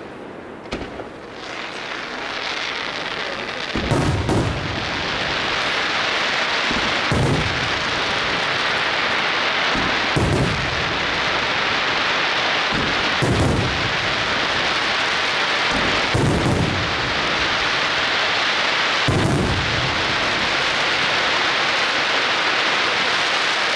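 Aerial fireworks shells bursting in a regular sequence: a low boom about every three seconds, six in all, starting about four seconds in. Beneath them runs a continuous dense crackling hiss from the showers of gold glittering stars.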